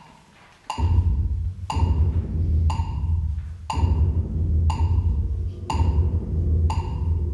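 Chamber ensemble music: evenly spaced percussive knocks, about one a second, each with a short ringing tone, over a low steady bass drone that comes in about a second in.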